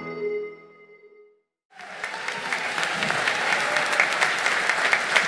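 The last notes of an electronic music intro ring out and fade away; after a brief gap, an audience applauds steadily.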